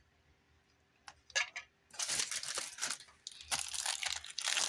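A few light clicks, then from about two seconds in plastic packaging crinkling and rustling as it is handled, with a short pause partway through.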